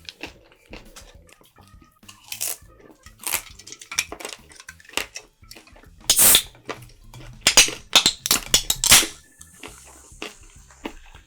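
Close-miked eating sounds: chewing and mouth noises mixed with sharp clicks, with a run of louder, noisier bursts about six to nine seconds in.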